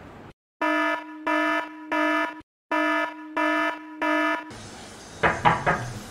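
Electronic alarm beeping: three short, sharp buzzer-like beeps, a brief pause, then three more. Near the end come three quick knocks.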